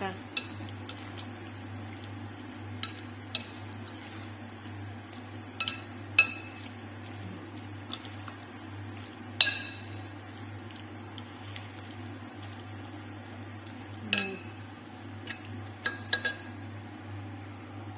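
Metal spoon stirring a thick, moist chicken, potato and cheese mixture in a glass mixing bowl, with irregular clinks of spoon on glass, a few of them sharp, over a steady low hum.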